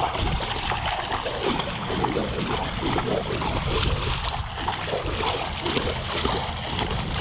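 Water splashing and churning without a break as jacks slash at a swimbait being worked in tight figure eights at the surface: a feeding frenzy.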